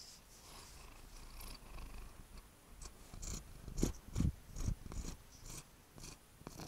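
A white Siamese cat purring close to the microphone while being stroked. About halfway through, a few louder bumps and rubbing sounds come as its face presses against the camera.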